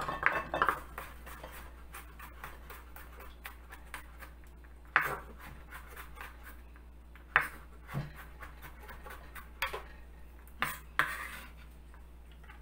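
Kitchen utensils and dishes being handled: a quick run of light taps for the first few seconds, then single knocks and clinks every second or two.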